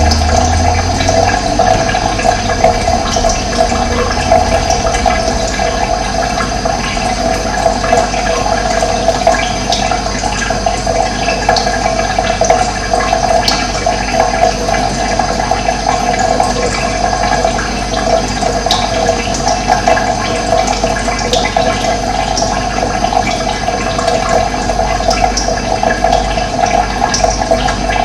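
Running water, a steady, even rush of flowing water.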